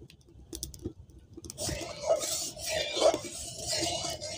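Mustard oil poured into a hot kadai, starting to hiss and crackle about a second and a half in as it heats in the pan. A metal spatula clinks against the pan near the end.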